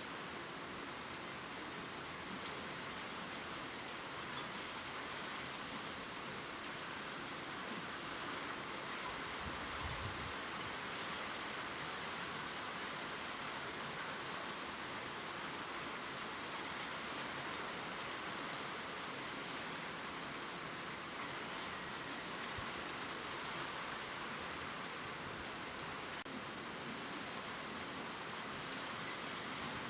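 Gentle steady rain pattering on leaves, with faint scattered drip ticks and a brief low thump about ten seconds in.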